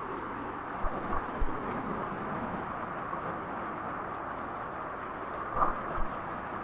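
Jungle river water rushing steadily, with a few short low thumps about a second in and twice near the end.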